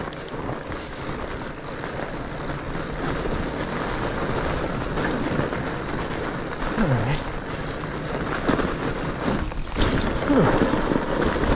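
Steady rushing noise of a fat bike running fast downhill over a snowy trail: wind buffeting the GoPro action camera's microphone, mixed with the rumble of the studded tyres.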